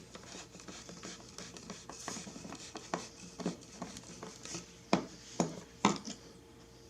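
Scratching and a run of sharp clicks as a screwdriver drives Phillips screws into a plastic turn signal housing.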